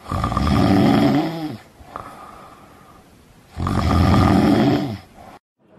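A person snoring: two snores about three and a half seconds apart, each about a second and a half long and dropping in pitch as it ends.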